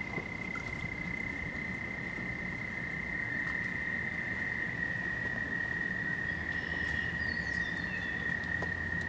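Steady high-pitched insect trill holding one pitch without a break, with a few faint bird chirps near the end.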